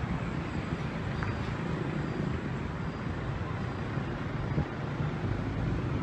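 Steady city traffic noise, an even low rumble with no distinct events.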